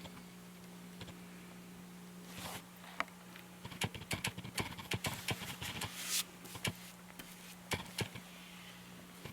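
A run of light, irregular clicks and taps, such as small objects being handled on a hard surface, over a steady low hum.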